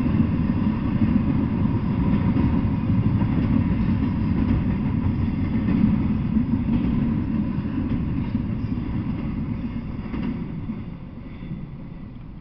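Double-stack intermodal freight train rolling past: a steady low rumble of steel wheels on the rails. It fades over the last few seconds as the end of the train goes by.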